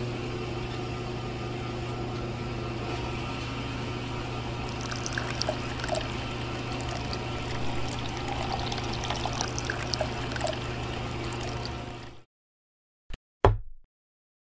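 Small electric water pump running with a steady hum, water trickling and splashing from it from about five seconds in. It cuts off suddenly about twelve seconds in, followed by two short knocks.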